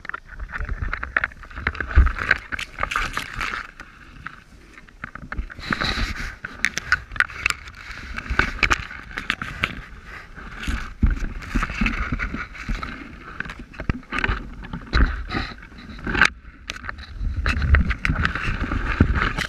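Leaves and branches brushing and scraping against a body-worn camera and the wearer's clothing while pushing through dense undergrowth. Irregular rustling and crackling with dull thumps from footsteps and handling.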